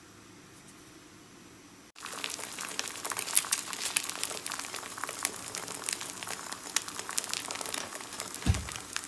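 Faint room tone, then from about two seconds in, two eggs frying in oil in a non-stick pan: a steady, dense sizzle and crackle of popping fat. A short low thump comes near the end.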